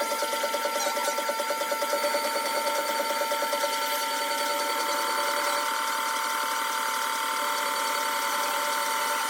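Güde wet grinder running with a steady whine, over a fast, rough pulsing that evens out about four seconds in.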